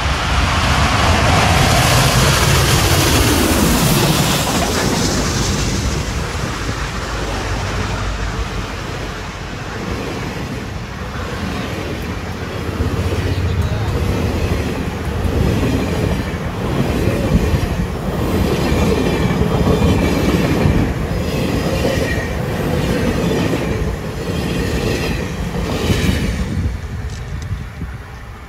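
Union Pacific 4014 Big Boy, a 4-8-8-4 articulated steam locomotive, passing close by, loudest in the first few seconds. Its passenger cars follow with a steady rhythmic clatter of wheels on the rails, which fades near the end.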